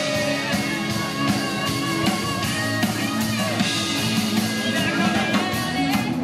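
Live band playing guitar music with a drum kit keeping a steady beat.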